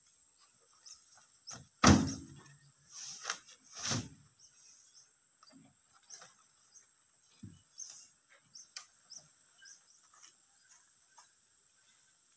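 Steady high insect buzz with scattered clicks and knocks. A sharp knock about two seconds in is the loudest, and two more come about three and four seconds in.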